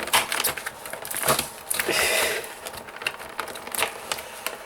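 A toy box's cardboard and plastic packaging being torn and pried open by hand: irregular crackles, snaps and scrapes, with a longer ripping rasp about two seconds in, as taped flaps resist.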